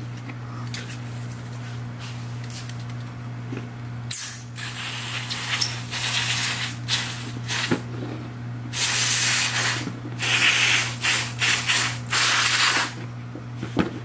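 Aerosol can of WD-40 Specialist quick-drying contact cleaner spraying through its straw in several bursts. There is a short one about four seconds in, and longer ones of a second or so each in the second half, as it cleans the contacts of a power window switch circuit board.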